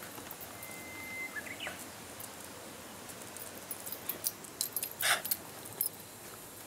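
Shiba Inu dogs' claws ticking on concrete as they walk about, with a brief thin high tone near the start. A short, loud burst of noise about five seconds in is the loudest sound.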